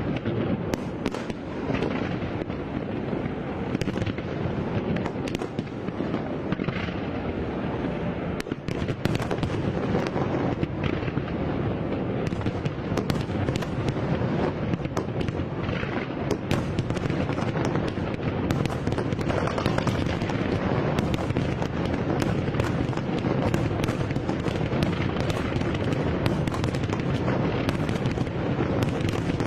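Fireworks display: a dense, unbroken barrage of bangs and crackles that goes on without a pause.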